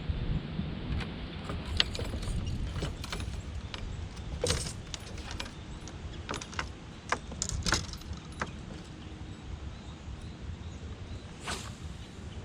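Low steady wind rumble on the microphone, with a run of sharp clicks and light rattles between about one and eight seconds in and one more near the end, like small hard gear being handled.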